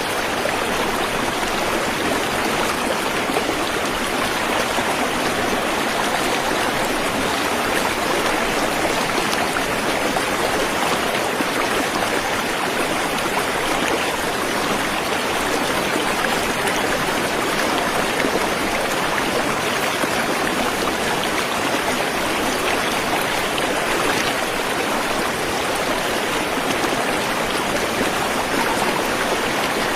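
Waterfall: a steady rush of falling water, an even hiss that never breaks or changes.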